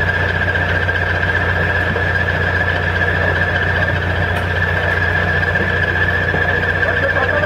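Excavator engine running steadily at constant speed: a low hum with a steady high-pitched whine above it.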